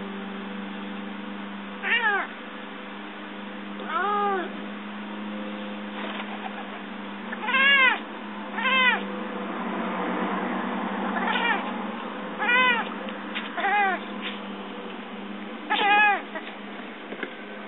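Domestic cat chirping in short, repeated calls that rise and fall in pitch, about eight of them a second or two apart, the excited chirp a cat makes at a bird it is watching but cannot reach. A steady low hum runs underneath.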